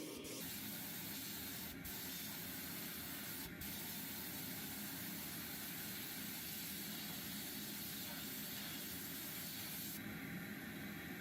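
Steady hiss of a compressed-air spraying tool, such as a sandblaster or paint spray gun, working on the toy truck's metal parts. The hiss breaks off briefly twice and changes character abruptly about half a second in and near the end.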